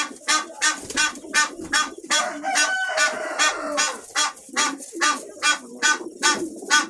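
A pen of pigeons and doves cooing, with a bird in the pen repeating short, sharp high calls about three a second.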